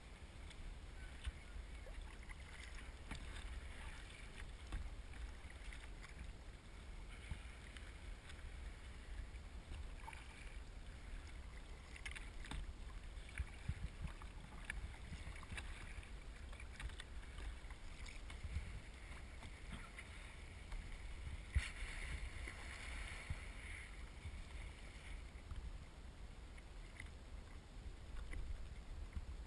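Faint water sounds around a kayak at sea: small splashes and drips over a low steady rumble, with a louder rush of water a little past the middle.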